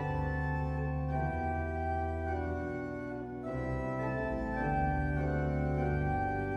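Organ playing slow, held chords that change about once a second.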